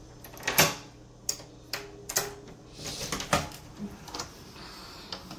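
Front door lock and latch clicking and knocking as the door is unlocked and opened: a string of about eight sharp clicks over a few seconds, the loudest about half a second in.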